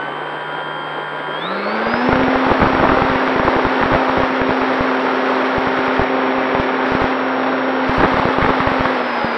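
Durafly Tundra RC plane's electric motor and propeller heard from on board. The whine rises in pitch about a second and a half in as the throttle opens to full for takeoff, then holds steady. From about two seconds in, wind buffets the onboard microphone in rapid, uneven thumps.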